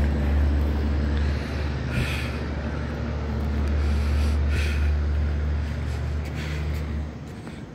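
A steady low mechanical hum, like an engine or machine running, that drops away abruptly about seven seconds in. Three short hissing sounds are spread across it.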